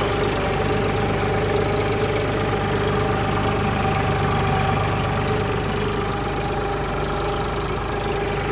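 Tractor engine running steadily at an even speed, with a low, fast firing rhythm and a steady hum.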